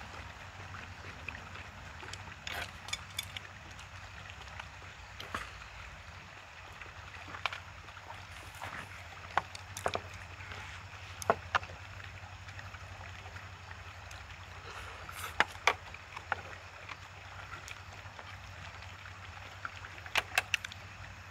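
Mukbang eating sounds: chewing, and chopsticks and a spoon clicking against plastic takeout trays in scattered sharp taps, over a steady low background hum.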